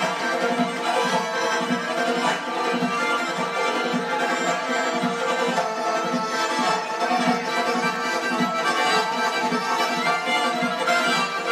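Georgian folk dance music: a busy instrumental melody over a steady, driving beat that plays without a break.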